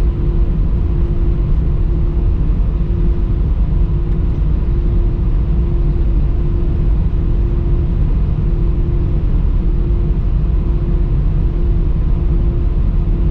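Cabin noise inside an Airbus A319 taxiing after landing: a steady low rumble with a steady mid-pitched hum running through it.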